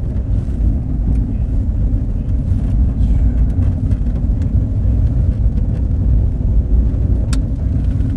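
Steady low rumble of road and engine noise from a car driving along, heard from inside the cabin, with one sharp tick about seven seconds in.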